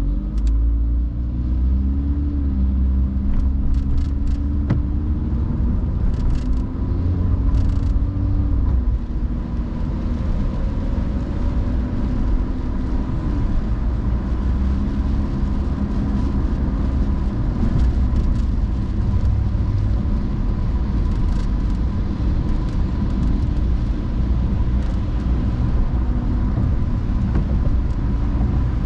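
Car driving on rain-wet roads: a steady low rumble of road and tyre noise, with the engine note rising as the car speeds up about a second in.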